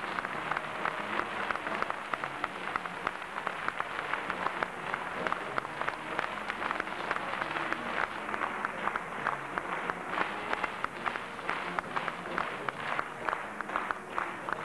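Theatre audience applauding, a dense patter of many hands clapping; in the second half the claps stand out more distinctly and evenly.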